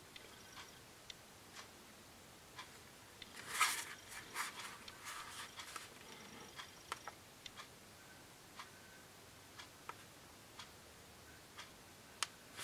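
Faint handling noises of hands on a plastic-cased tablet: scattered small clicks and light rubbing, with a brief louder rustle about four seconds in.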